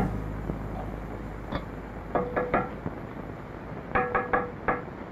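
Mason's steel trowel tapping concrete blocks to set them in line: a single sharp tap, then three, then a quicker run of four or five near the end, some with a short metallic ring, over a steady low hum.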